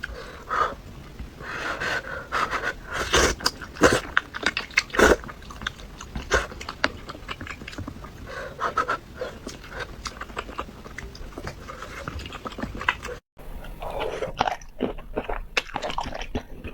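Close-miked eating: chewing with many short, wet mouth smacks and clicks, typical of mukbang eating of sticky, sauce-coated malatang noodles. The sound drops out completely for a moment about thirteen seconds in, then the chewing resumes.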